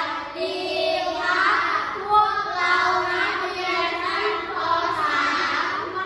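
A group of children singing together in unison, their voices held on sustained, sliding notes.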